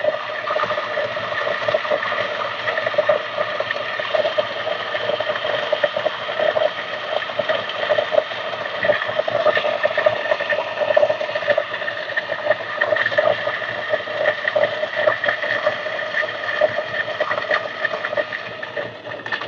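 DF64V 64 mm flat-burr coffee grinder running at 600 RPM through an 18 g single dose of beans: a steady motor hum with a continuous crackle of beans being crushed between the burrs.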